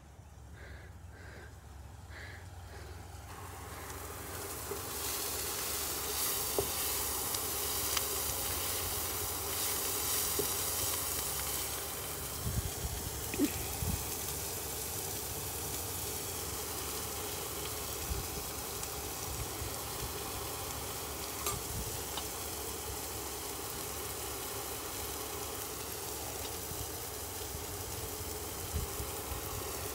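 Chopped green onions frying in hot oil in a kadai, a steady sizzle that grows in over the first few seconds and then holds, with a few light knocks.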